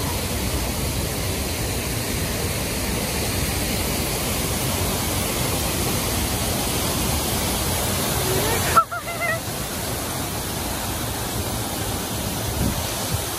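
Steady rush of an artificial rock waterfall splashing into a pond. A short pitched call cuts through just before nine seconds in.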